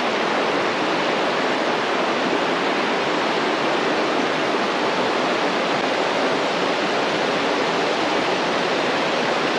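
River rapids and small waterfalls, a steady, pretty loud rush of water without a break.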